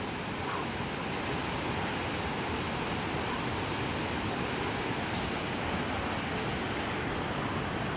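Rushing mountain stream: a steady, even rush of white water.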